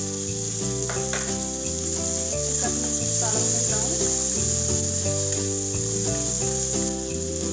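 Green peas, onion and ginger sizzling steadily in hot oil in a stainless-steel wok, stirred with a wooden spatula.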